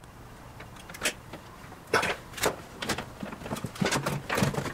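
Irregular clicks, knocks and scrapes of stiff insulated electrical wire being bent and pushed around inside a metal breaker panel. They come sparsely at first and more often toward the end.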